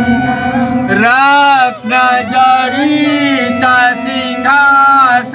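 A man singing a devotional aarti hymn over music, in long held notes that waver in pitch.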